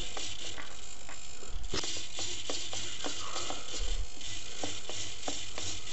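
RC helicopter swashplate servos making short whirs and light ticks as they follow transmitter stick movements, about two irregular ticks a second over a steady hiss.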